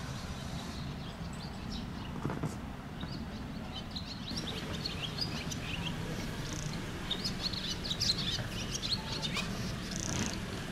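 Small birds chirping in quick short calls, more of them from about three seconds in, over a steady low background hum.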